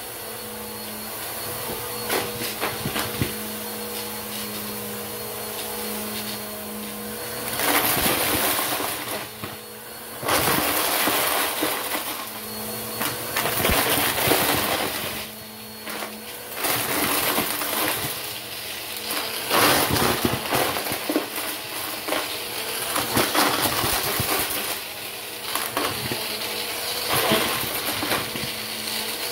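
Bissell upright vacuum cleaner running over carpet, its motor humming steadily, as it sucks up plastic water bottle caps and fake coins that rattle and crunch through it. The clatter starts about a quarter of the way in and comes and goes in loud spells.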